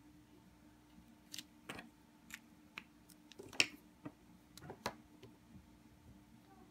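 Light plastic clicks and taps from a Copic marker being handled and set down on the desk, about eight in a few seconds, the loudest a little past the middle.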